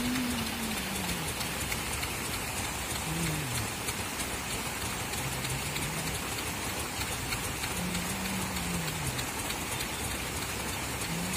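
Paddlewheel aerators churning a shrimp pond: a steady splashing rush of water, much like heavy rain. A few faint, low wavering tones come through now and then.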